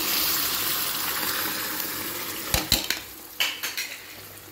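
Snake gourd sizzling in hot oil in a kadai. About two and a half seconds in come a few sharp knocks of a utensil against the pan, and after that the sizzling is quieter.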